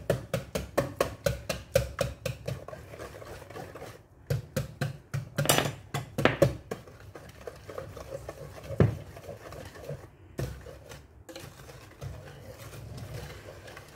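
Wire balloon whisk beating egg-rich brownie batter in a stainless steel pot, the wires clicking against the pot at about five strokes a second. The strokes turn uneven partway through, with a few louder ones, and then grow fainter and sparser in the second half.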